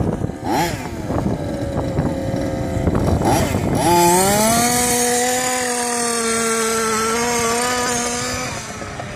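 Small two-stroke petrol engine of a large-scale FG Sportsline RC car, blipped twice, then revving up about four seconds in and holding steady high revs for several seconds. It fades near the end as the car drives off.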